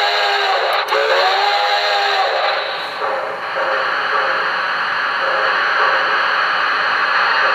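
Steam locomotive sound effects from a QSI Maxx Traxx sound unit played through a speaker: a multi-note chime steam whistle ends one blast and sounds a second of about a second and a half, then a steady steam hiss.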